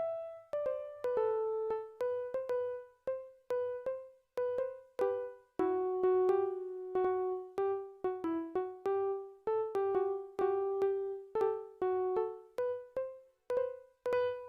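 A simple melody played one note at a time on a piano-like keyboard, each note struck and then fading, about two notes a second.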